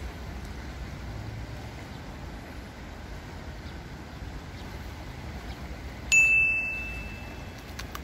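A single high bell-like ding about six seconds in, struck sharply and fading out over about a second and a half, over a steady low background rumble.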